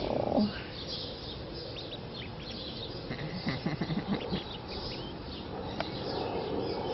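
Mallard ducklings peeping: many short, high-pitched calls through the whole stretch, with a few louder low sounds a little past the middle.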